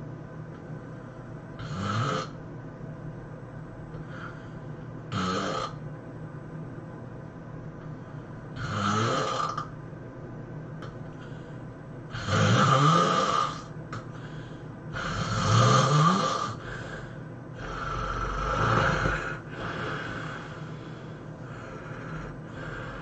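A sleeping person snoring, six snores about every three seconds. The ones in the middle are the loudest, and their pitch rises through each breath.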